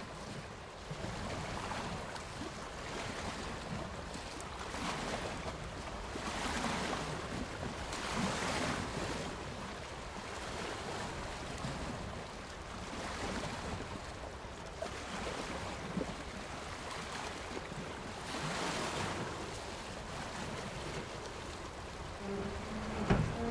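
Water washing and lapping in slow swells every couple of seconds, with wind.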